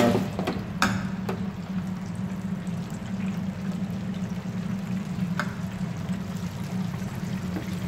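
Steady low hum and rush of commercial kitchen equipment, with a few light clicks.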